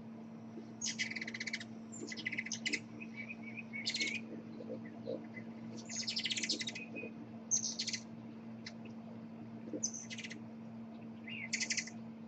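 Hummingbird chattering in about seven quick, buzzy bouts of high squeaks, each under a second long, with a steady low hum underneath.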